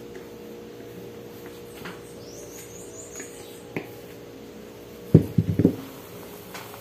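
A quick cluster of low knocks about five seconds in, as a plastic mixing bowl is set down and a spatula goes into the batter, over a low steady room hum. A faint high chirp near the middle and a single click come before it.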